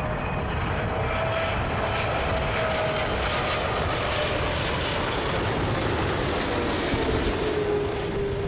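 Jet airliner's engines running on landing approach: a steady rushing noise with a faint whine that slowly slides down in pitch as the plane goes by.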